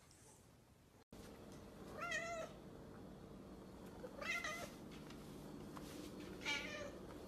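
Siamese cat meowing three times, about two seconds apart, each meow about half a second long.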